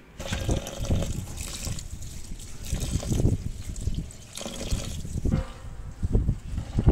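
Tap water running into a steel bowl of rice while hands swish and rub the grains, washing the rice. The splashing rises and falls in uneven surges.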